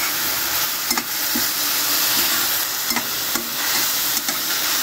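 Chopped onions sizzling steadily in hot oil in a stainless steel kadhai, with a few scrapes and knocks as a steel spatula stirs them against the pan.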